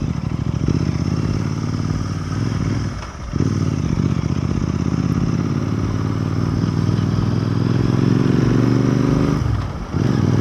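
Royal Enfield Continental GT 650's 648 cc parallel-twin engine pulling under acceleration while riding, its pitch climbing. It eases off briefly about three seconds in, as for a gear change, then pulls up steadily again before dropping near the end.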